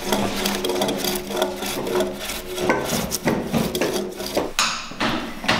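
Hand plane cutting shavings off the top face of a timber beam in a quick run of short strokes, flattening it to take a joint.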